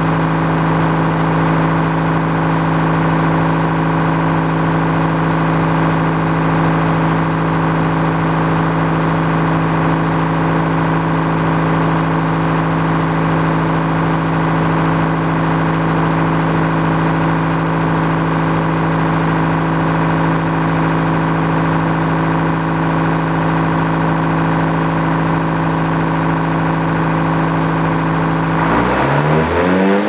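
Circular sawmill running steadily, its power unit engine turning the big circular blade without cutting. About a second before the end the pitch shifts abruptly.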